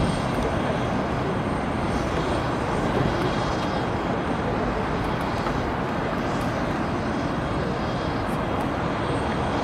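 Jet aircraft engines running steadily on the apron: an even rushing noise with a faint high whine.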